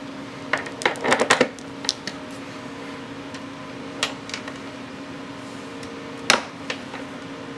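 Metal and brass clicking and knocking at a single-stage reloading press as a bullet is set on a case and seated in the die: a quick run of clicks about a second in, then single knocks near four and six seconds. Under it, an electric fan hums steadily.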